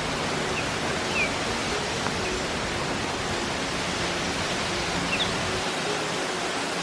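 Steady rush of falling water from a gorge waterfall, with a few faint high bird chirps; the deep low end of the rush drops away near the end.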